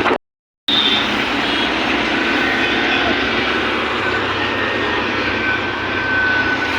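Steady rushing road and wind noise with a motorcycle engine running underneath, heard while riding. A half-second dropout comes near the start.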